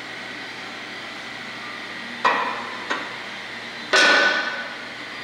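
Metal weight plates clanking together as they are handled at a weight machine. There is a sharp clank a little over two seconds in, a lighter one just after it, and the loudest clank about four seconds in, which rings briefly.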